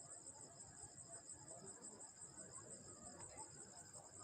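Crickets chirring faintly in a steady high trill.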